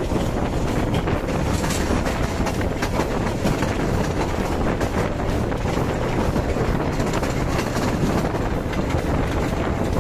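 Passenger train running steadily, heard from on board: a constant loud rumble and rush of wheels on rails and moving air.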